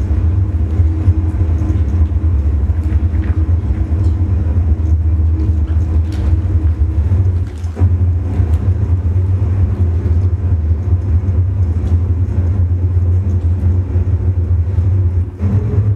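A loud, steady low rumbling drone from the dance piece's sound score, with faint steady hum tones above it; it drops out for a moment about seven and a half seconds in and again near the end.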